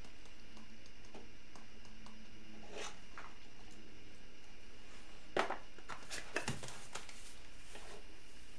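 Light clicks and taps of plastic measuring spoons and spice containers being handled over a bowl of flour as seasoning is measured in, with a short run of sharper taps a little past halfway, over steady room tone.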